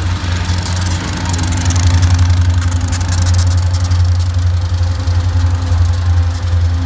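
Diesel-electric locomotives passing close by at the rear of a coal train, their engines running with a deep steady drone, over the rattle of steel wheels on the rails.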